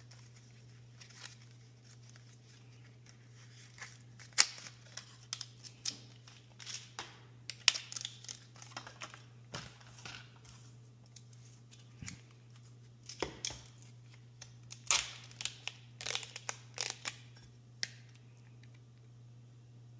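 Cat-food preparation in a kitchen: irregular short clicks, scrapes and crinkles of packaging and utensils being handled, thickest from about four seconds in to near the end, over a faint steady low hum.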